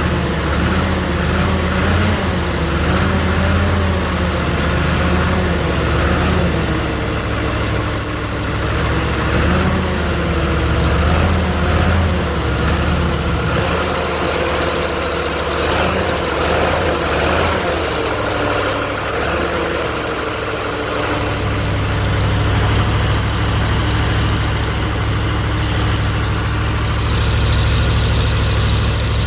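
Engine of a 302 air compressor running on a newly fitted fuel pump. Its speed wavers gently at first, then about two-thirds of the way in it settles into a steadier, deeper note.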